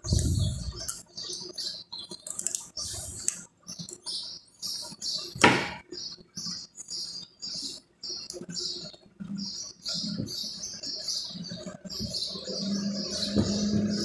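Enamelled copper magnet-wire coils being worked by hand into the slots of a washing-machine motor stator: irregular crinkling, scratching and small clicks of stiff wire, with one louder clack about five seconds in. A steady low hum comes up near the end.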